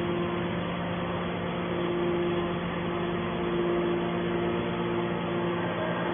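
Hydraulic scrap metal baler's power unit running, a steady machine hum.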